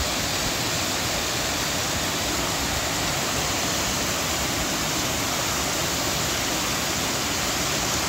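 Two small waterfalls pouring into a shallow pool: a steady rush of falling water.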